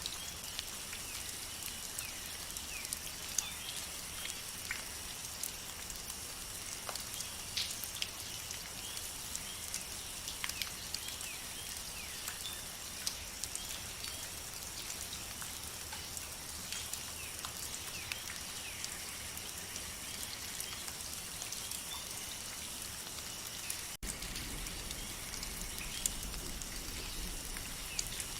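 Rain forest rainfall, with drops falling and dripping in quick irregular clicks over a steady high-pitched chorus with short chirps. About three quarters of the way through the sound cuts out for an instant and comes back with an added low rumble.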